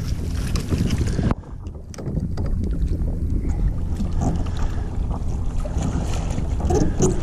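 Wind rumbling on the microphone over water sloshing against the side of a paddleboard, with scattered small knocks and splashes as a hooked black drum is handled at the board's edge.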